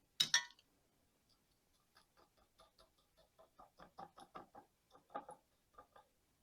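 Small grains of gritty bonsai soil being spooned into a small pot, landing as a string of light, irregular ticks and taps. A sharper click comes just at the start.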